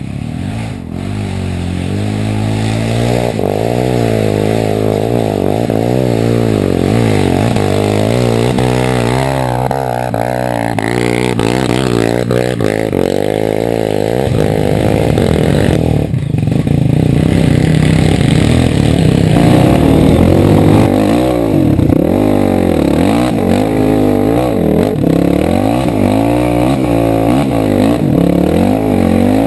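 Off-road dirt bike engine running close to the microphone, revving up and down again and again as the bike works along the trail, louder in the second half.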